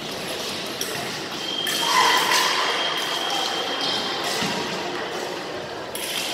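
A fencing scoring machine gives a steady high beep, starting about a second and a half in and lasting about two and a half seconds, marking a registered hit. Scuffing footwork and knocks on the piste sound under hall noise.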